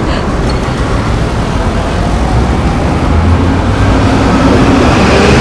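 Busy city street traffic with a bus's engine passing close by, a low rumble that grows louder about three seconds in.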